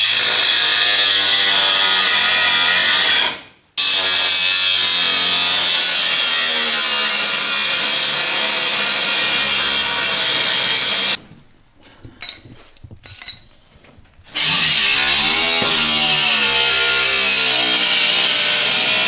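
Angle grinder cutting metal, its motor pitch wavering under load. It stops briefly about three and a half seconds in, and again for about three seconds past the middle, where a few light clicks are heard, then starts cutting again.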